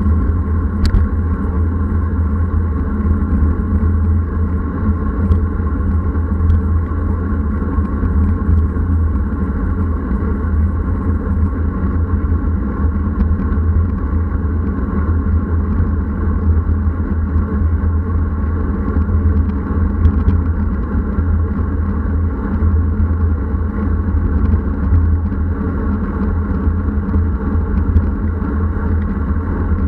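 Wind buffeting a bike-mounted action camera's microphone while riding a road bike into a strong headwind: a loud, steady low rumble.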